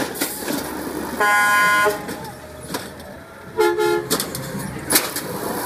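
Truck horn tooting twice: a loud, steady toot about a second in lasting under a second, then a shorter, lower-pitched toot near the four-second mark.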